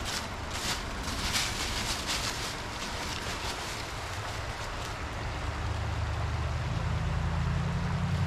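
A vehicle engine's low, steady hum comes in about five seconds in and grows louder toward the end, over brief scraping and rustling noises in the first few seconds.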